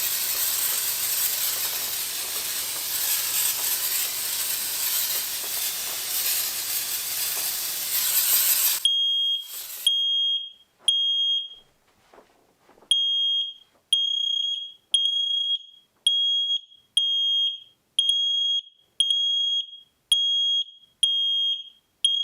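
An aerosol can of smoke-detector test smoke hisses steadily for about nine seconds. Then the X-Sense XP01W smoke and CO alarm sets off, sounding high beeps a little over once a second, with a brief pause after the first few: the alarm has detected the test smoke.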